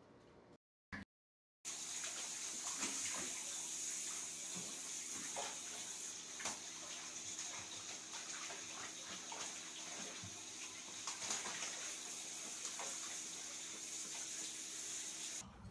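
Water running steadily into a bathtub, with occasional small splashes from a puppy moving about in the water. It begins about two seconds in, after a short silence.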